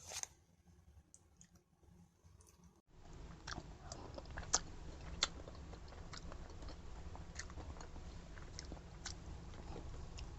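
A person eating chicken Bicol Express: chewing and biting with many short sharp clicks and taps, starting about three seconds in after a brief sound and a quiet moment.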